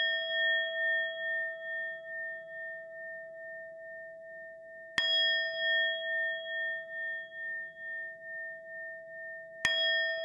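A bell or singing bowl struck about every five seconds, each stroke left to ring out long with a slow waver in its tone, sounded as the call to the invocation prayer.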